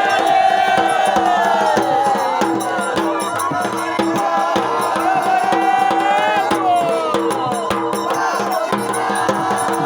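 Traditional folk music: a gliding melody line over a steady drone, with rattling, clicking percussion.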